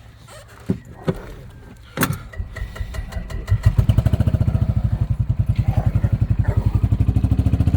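A few sharp knocks, then about three and a half seconds in a gas golf cart's engine starts and runs with a steady, rapid chugging pulse.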